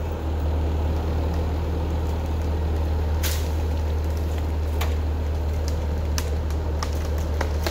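Skid steer loader's engine running steadily, stepping up in level just after the start as the machine backs up under load to pull the limb. A few sharp cracks sound over it.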